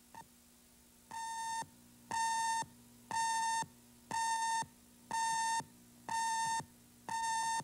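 Seven electronic beeps, each about half a second long, coming about once a second at one steady pitch over a faint hum.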